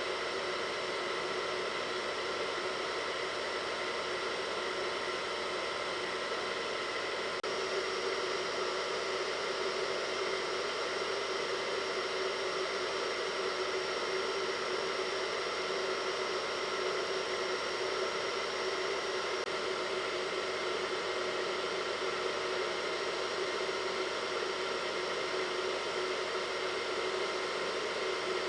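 Hair dryer blowing steadily, a continuous rush of air with a motor whine. Its pitch shifts slightly about seven seconds in.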